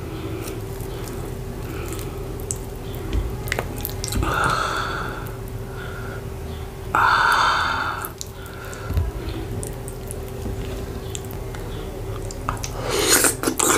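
Close-miked wet, sticky sounds of fufu being handled and dipped in soup by hand, with small clicks and two louder sounds about four and seven seconds in. Near the end comes a louder wet mouth sound as a big bite of soup-coated fufu goes in.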